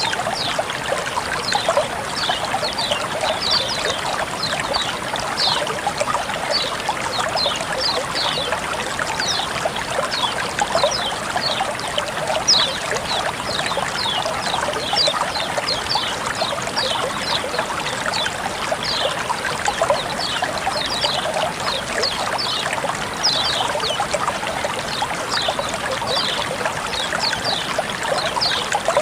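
Flowing water trickling and splashing steadily, with many short high notes scattered through it.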